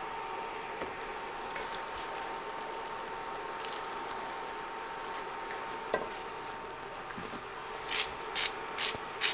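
Hand spice mill twisted over the pot: a run of short grinding rasps, about two a second, starting near the end, over a faint steady hiss.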